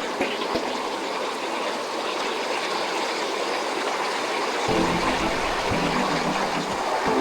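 Hot-spring stream water rushing and splashing down a rocky waterfall cascade, a steady hiss.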